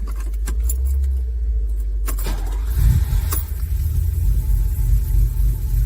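Ferrari 308's V8 engine starting: a few clicks, a sharp crack a little over two seconds in, then the engine catches and runs with a loud, uneven low pulse.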